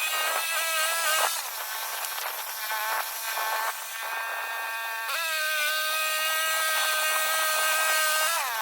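Woodland Mills HM126 portable band sawmill running with a steady, high-pitched whine. It turns rougher and noisier for a few seconds in the first half, then settles to an even whine whose pitch falls away near the end as the machine slows.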